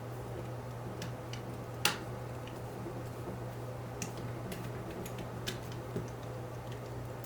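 Scattered small clicks and taps of plastic RC car kit parts and tools being handled during assembly, with one sharper click about two seconds in. A steady low hum runs underneath.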